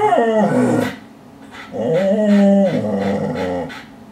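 Dog whining at an opossum it is interested in: a bending whine that falls away about a second in, then a longer, steadier whine lasting about two seconds.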